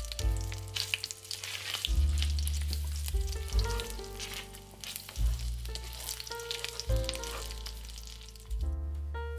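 Food frying in hot oil in a pan, a dense crackling sizzle that dies away shortly before the end.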